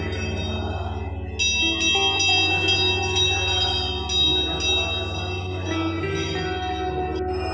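Background music with bells: a steady low drone, joined about a second and a half in by repeated ringing bell strikes.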